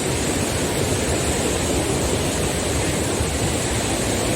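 Steady roar of Athirapally Falls, a large waterfall in heavy flow, its water falling fast.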